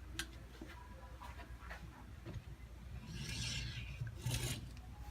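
Hands working a window screen in its frame: scattered light clicks and taps, with two longer scraping rubs about three and four seconds in.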